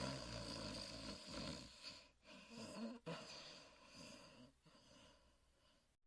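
Snoring: one long snore, a shorter one about halfway through, then a fainter breath that fades away near the end.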